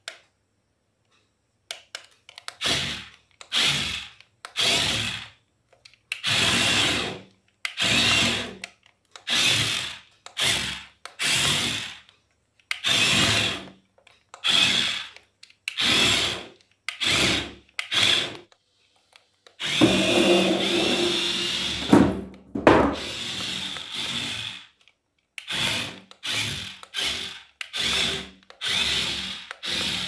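Remote-control toy dump truck's small electric motors and gearing whirring in short bursts of about half a second to a second, starting and stopping over and over as the truck is driven. One longer run of about four seconds comes a little past the middle.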